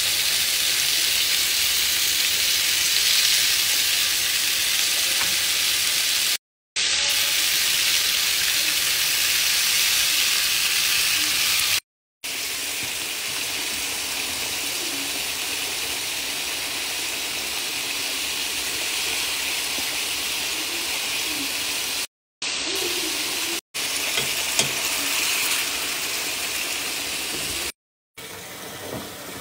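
Food sizzling steadily in hot frying pans, including steaks frying in butter in a cast-iron skillet, heard in several short clips cut apart by brief silences. Near the end, a tap runs water into a sink.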